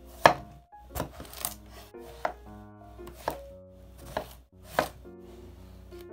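Kitchen knife cutting through a round green squash (zucchini) and knocking on a wooden cutting board, about seven cuts spaced irregularly, the first the loudest. Soft background music with held notes plays underneath.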